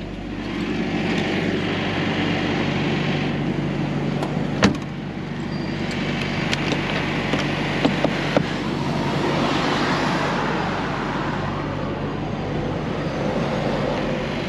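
Semi truck's diesel engine idling steadily, under the rush of passing road traffic, with one sharp knock about five seconds in.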